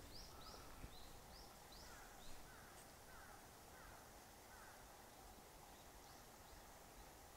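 Faint small-bird calls: a run of short, high chirps about three a second over the first two seconds or so, with lower falling notes among them, then a few fainter chirps near the end.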